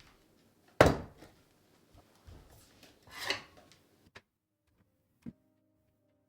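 A sharp knock about a second in, then a short scraping slide around three seconds in and a small click, like something being handled and set down.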